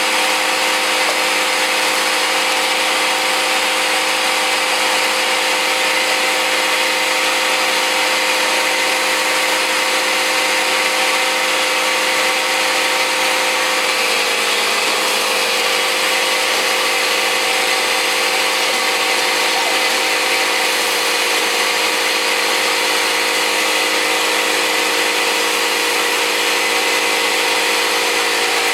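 Vacuum cleaner motor running steadily with a constant whine, cleaning out a pellet stove.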